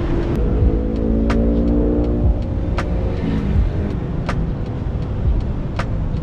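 Motor vehicle engine accelerating close by over a steady low traffic rumble, its pitch rising gently for the first few seconds, with sharp clicks about every second and a half.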